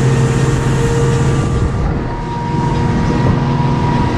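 Motorboat engine running under way, a steady hum over a loud rush of wind and water.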